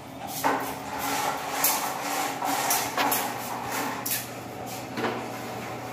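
Aluminum window screen being slid and worked by hand, scraping and rattling in its frame with a string of knocks, over a steady low hum.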